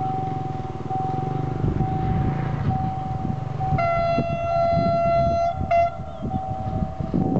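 Level-crossing warning signal sounding a steady, regularly interrupted tone. About four seconds in, the approaching diesel locomotive GEA 4530 sounds its horn, one long blast and then a short one.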